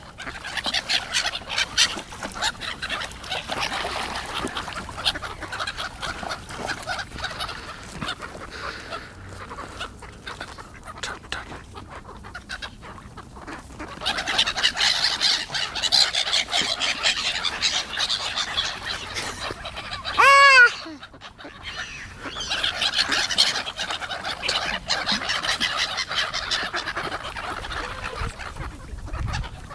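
A flock of gulls calling, a dense chatter of short, overlapping calls that thins out for a few seconds and then swells again. About twenty seconds in, one loud, close call arches up and falls away.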